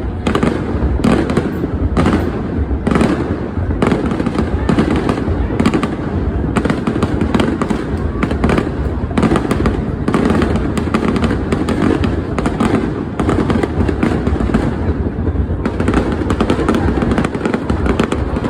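Fireworks bursting in a dense, continuous barrage: irregular bangs and crackles, several a second, over a constant low rumble.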